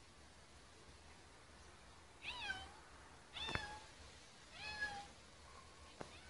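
Domestic cat meowing three times, about a second apart, each meow rising and then falling in pitch.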